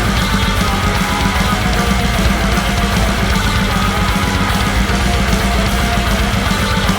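Death metal recording played by a full band: distorted guitars and bass over fast, dense drumming, loud and unbroken.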